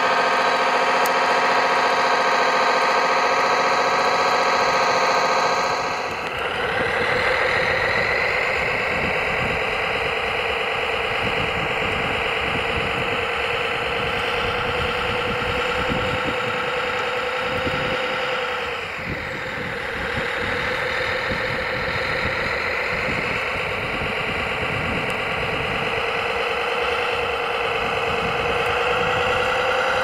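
Background music for about the first six seconds, then the running sound of a radio-controlled scale Liebherr 741 crawler bulldozer: a pitched drive whine that rises as it gathers speed, dips briefly around the middle and rises again, with a rattle underneath.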